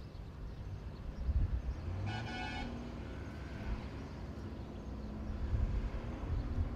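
Outdoor ambience with a steady low rumble, and one short, steady toot about two seconds in.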